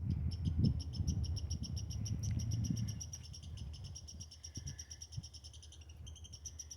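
A small squirrel giving an agitated alarm call: a fast, steady run of high chirps, many a second, aimed at a person nearby. A low rumble on the microphone sits under the chirps for the first three seconds, then fades.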